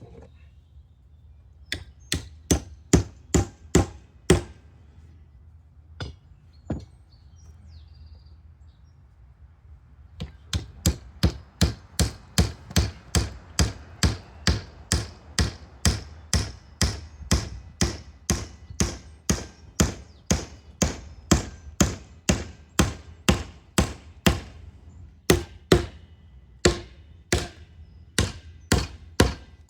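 Sharp, regular knocking strikes. A quick cluster of about eight comes a couple of seconds in, then two single knocks. From about a third of the way through, the knocks settle into a steady run of about two to three a second.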